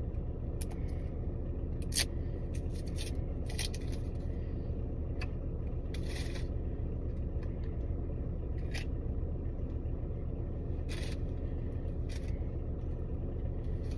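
Steady low hum of a car interior, with scattered short crinkles, clicks and scrapes as a travel-size tin of Crazy Aaron's putty is unwrapped and opened by hand.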